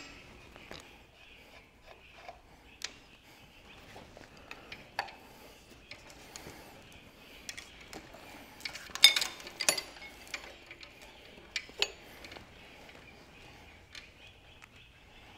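Steel spanners and a ratchet clinking and knocking against the cast-iron engine head and manifold nuts, in scattered sharp strikes. The loudest run of clanks comes about nine seconds in.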